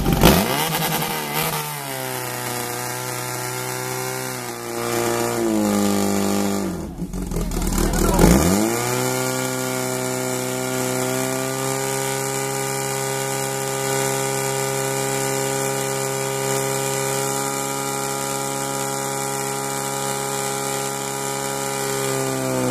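Portable fire pump engine revved hard: its revs climb, sag and almost die about seven seconds in, then rise again and hold steady at high revs while it drives water through the hoses to the nozzles. The revs drop right at the end.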